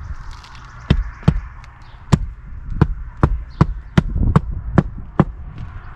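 Hammer driving roofing nails into asphalt shingles: a string of about ten sharp strikes, roughly two a second, starting about a second in.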